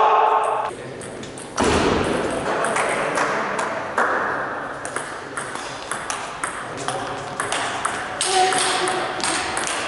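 Table tennis rally: a string of sharp clicks as the ball is struck by the paddles and bounces on the table.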